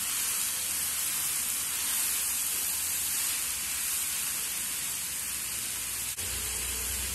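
Drumstick pieces, onion and tomato sizzling steadily as they fry in oil in a pan, a soft even hiss. A faint click about six seconds in.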